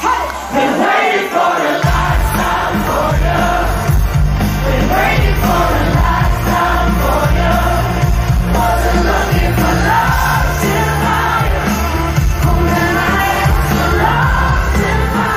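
Live pop concert music amid a crowd: a singer over the band, with the crowd joining in and cheering. The heavy bass comes back in about two seconds in and carries on steadily.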